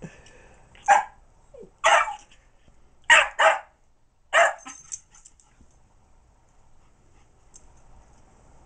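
Min pin/Jack Russell cross puppy giving five short, sharp barks in quick succession over about four seconds, aimed at a cat hiding under the bed during play.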